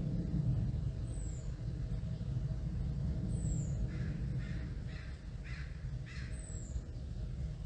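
A crow cawing five times in quick succession about halfway through, over the steady low rumble of a plane passing overhead. A small bird's thin, high, down-slurred note repeats every two or three seconds.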